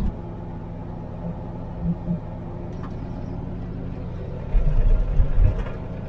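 Vehicle engine and driving noise heard inside the cab, a steady low hum with louder low rumbling about four and a half to five and a half seconds in.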